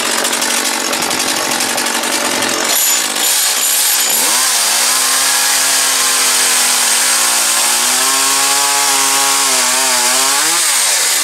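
Echo CS-271T top-handle two-stroke chainsaw running at high revs and cutting into a small block of wood. Its engine pitch wavers under the load of the cut, then rises and falls away sharply near the end.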